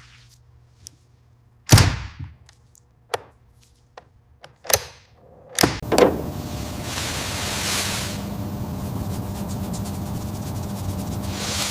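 Four separate sharp thuds a second or so apart, followed about six seconds in by a steady noisy rumble with a low hum.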